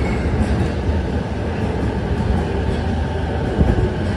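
Tokyo Waterfront Area Rapid Transit 70-000 series electric train standing with its doors open: a steady low rumble.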